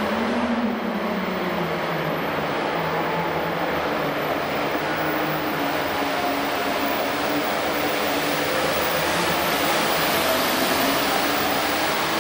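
Case IH MX270 pulling tractor's diesel engine running flat out as it drags the weight sled down the dirt track. The engine is loud and steady, and its pitch rises just after the start.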